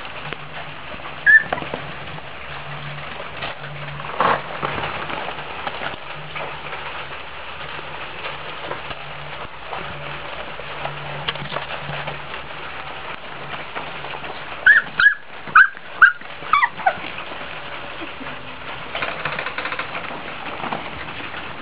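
Chesapeake Bay retriever puppies whimpering. One short high squeak comes about a second in, and about two-thirds of the way through there is a quick run of five or six high yelps and squeals that fall in pitch. A single knock comes around four seconds in, all over a constant hiss.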